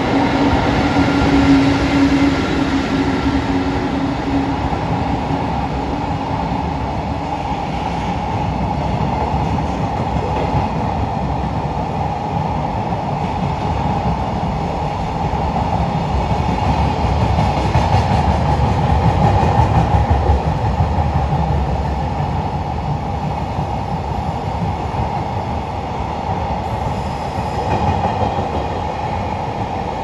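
Freight train hauled by an EF81 electric locomotive rolling past, its wagons' wheels clattering over the rail joints in a steady, loud rumble.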